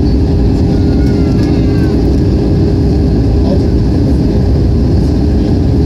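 Steady, loud cabin noise of a jet airliner descending to land: the turbofan engines' rumble and rushing airflow, with a steady hum under it.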